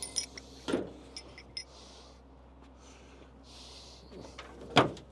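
A few scattered knocks, the loudest near the end, with short bursts of rustling and small ticks in between.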